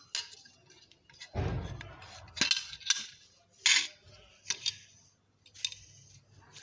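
Metal parts of a washing machine spinner motor being handled and turned over: a series of sharp clicks and clinks as the housing, rotor and shaft knock together, with a low thump about a second and a half in.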